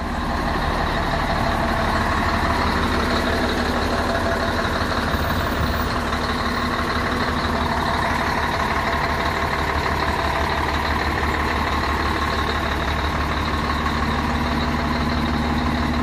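Heavy truck's diesel engine running steadily, a constant low rumble with a steady hum over it.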